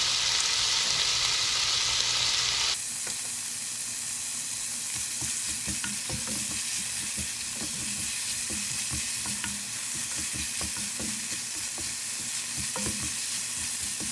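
Chicken gizzards frying in a hot nonstick pan. A loud sizzle for the first few seconds as fish sauce goes in, then a sudden change to a quieter steady sizzle with the clicks and scrapes of a silicone spatula stirring.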